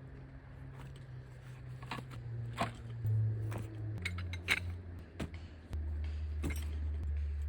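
Metal camping gear clinking and knocking in a string of sharp, irregular clinks, over soft background music with a low bass that steps between notes.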